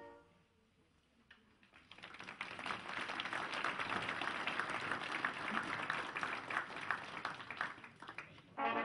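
Crowd applauding, building up about two seconds in after a brass chord dies away. Near the end the brass players start playing again.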